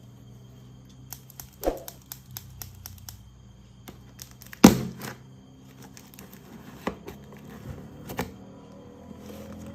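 Toys and their packaging being handled during an unboxing: scattered light clicks and crinkles, with one louder knock about halfway through.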